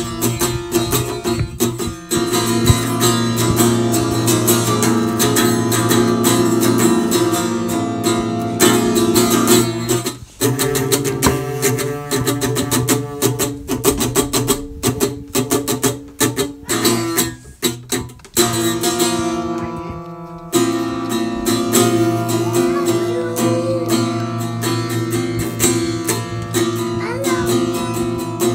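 Music led by a strummed acoustic guitar, with brief dips about ten seconds in and again near twenty seconds.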